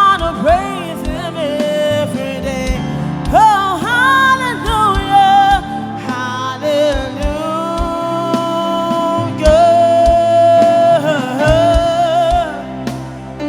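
Live gospel singing: a lead vocalist sings long held notes and bending runs over band accompaniment, with low drum thumps underneath.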